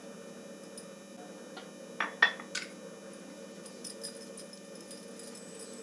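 A few light knocks and clicks of a wooden rolling pin and hands on a marble rolling board, with a cluster of three sharp knocks about two seconds in and fainter ticks after, over a steady low hum.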